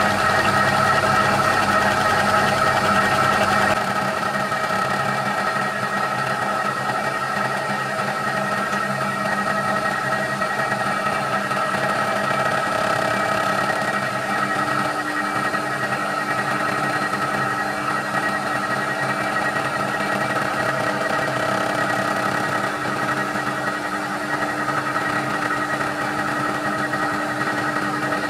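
TOS FNK25A milling machine running with a steady whine as its face-mill cutter takes a light spring pass, with no added depth, across an aluminium three-cylinder cylinder head to finish the resurfacing. The deep rumble underneath drops away about four seconds in, and a lower hum joins about halfway through.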